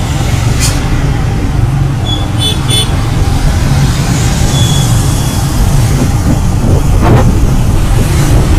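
Steady, loud low rumble of a moving vehicle riding through traffic, with wind buffeting the microphone. A few short high chirps come about two seconds in.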